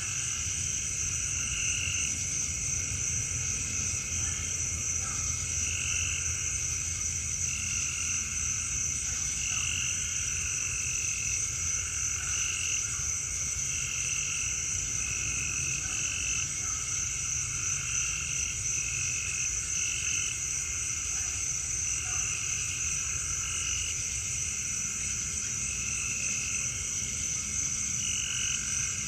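Chorus of calling frogs: short croaking calls repeat irregularly every second or two over a steady high-pitched shrill and a low steady rumble.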